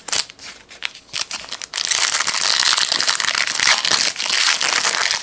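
Trading cards handled with a few light clicks, then a trading-card pack's foil wrapper crinkling loudly for about three seconds.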